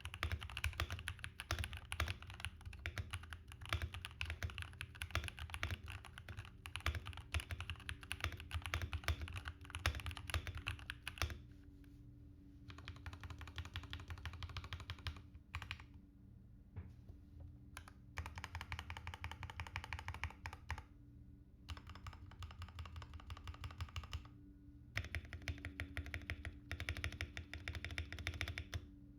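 Typing on a Royal Kludge RK84 mechanical keyboard, a fast dense run of key clacks. About eleven seconds in, the typing thins out and grows softer, with short pauses. It picks up again near the end.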